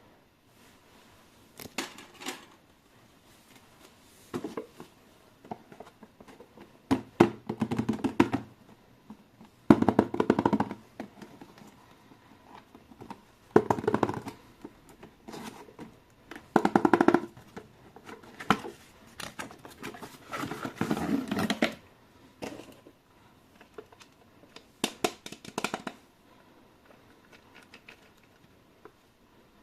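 Toy packaging being handled and opened by hand: cardboard and plastic rubbing and rustling, with small knocks, in bursts of one to two seconds separated by short pauses.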